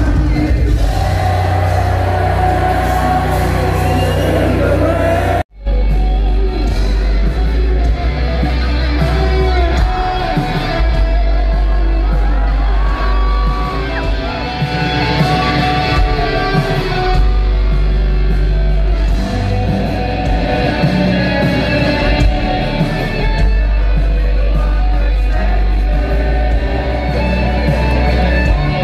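Loud live concert music from a rock and hip hop band, heard through a phone's microphone in the crowd: amplified singing over a heavy bass. About five seconds in the sound cuts out to silence for an instant as one clip is spliced to the next.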